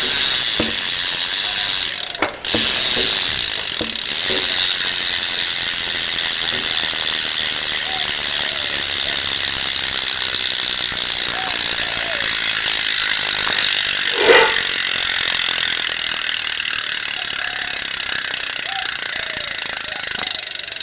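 Odyssey Vandero 2 BMX rear cassette hub freewheeling, its pawls clicking so fast they merge into a steady high buzz as the back wheel coasts. There is a brief break about two seconds in and one short louder noise about two-thirds of the way through.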